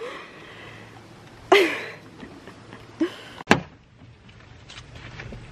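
A car door shut once with a sharp knock about three and a half seconds in, after which the sound is more closed in, as from inside the car. Before it, about a second and a half in, there is a brief, loud, voice-like sound with a low rise and fall in pitch, and a low steady hum runs throughout.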